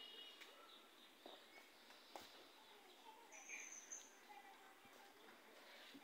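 Faint outdoor ambience with small birds chirping now and then, including a short high call a little past the middle, and a couple of soft clicks.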